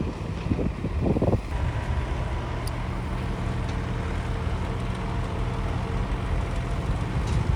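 Diesel engine of a heavy machine running steadily, with a few short bursts of noise in the first second and a half.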